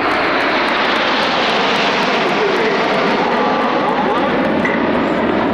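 Jet noise from the Red Arrows' BAE Hawk T1 formation flying in, a loud, steady rushing sound with no breaks.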